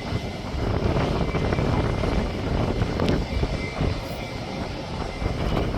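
Jet airliner engines, a steady low rumble.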